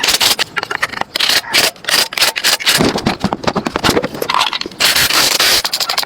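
Quick, irregular strokes of rubbing and scraping on a surface, typical of hand scrubbing or sanding during restoration work.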